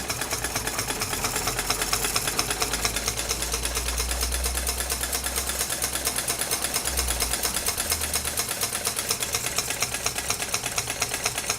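PM Research #1 model mill engine running steadily with a fast, even beat while powering a model sawmill.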